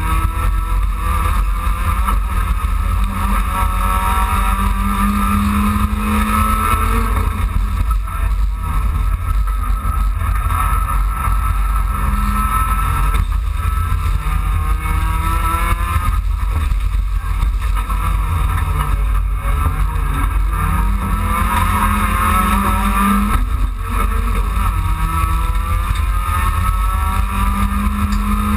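Dacia Logan Cup race car's four-cylinder engine heard from inside the cabin, running hard under racing with the revs climbing and dropping back several times, over a heavy constant rumble of tyres and road.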